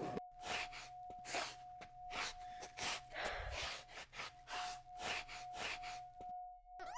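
A person panting in quick, noisy gasps, about two to three breaths a second, over a steady high hum. A short rising swoop comes right at the end.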